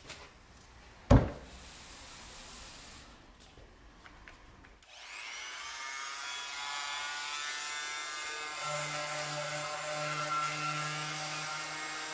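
A sharp knock about a second in. About five seconds in a corded Harbor Freight variable-speed oscillating multi-tool with a sanding pad is switched on: its motor whine rises and settles into a steady buzz, and a lower hum joins in about nine seconds in as it sands wood.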